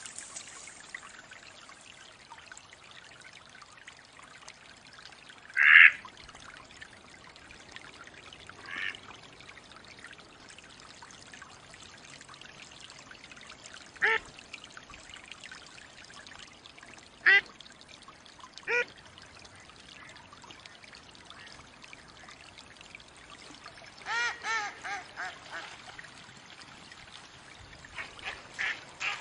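Mallard ducks quacking over a steady trickle of water: scattered single quacks, the loudest about six seconds in, then a quick run of about six quacks near the end.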